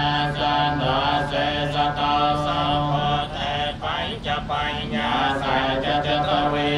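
Several Buddhist monks chanting in unison, a steady low drone of voices with held notes and brief pauses for breath.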